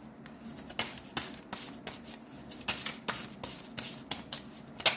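A deck of tarot cards being shuffled by hand: a quick irregular run of crisp card slaps and flicks, several a second, with a louder slap near the end.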